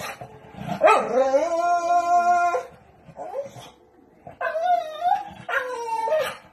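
A dog howling and whining: one long held cry about a second in, then two shorter wavering cries in the second half.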